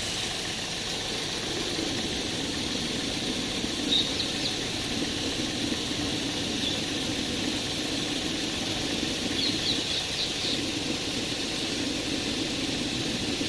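Pressure washer running steadily, spraying detergent water through a soot-clogged diesel particulate filter to flush the soot out.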